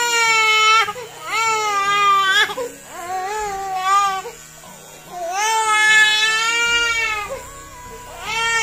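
A baby crying hard in a string of long wails, each rising and then falling in pitch, with short breaks for breath between them; she is crying while her head is shaved with electric clippers.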